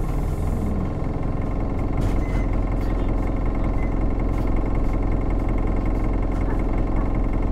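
Cabin sound of a 2016 Isuzu Erga city bus's 4HK1-TCS turbo-diesel inline-four engine with Allison six-speed automatic, running under way. A hiss of air cuts off within the first second. A steady high whine joins about two seconds in, with a few light rattles.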